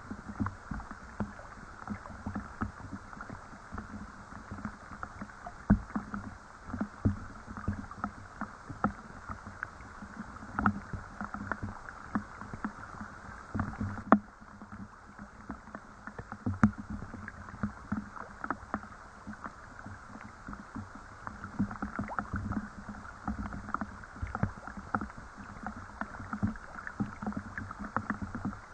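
Rain falling, heard as irregular close drips and small splashes over a steady wash of water sound.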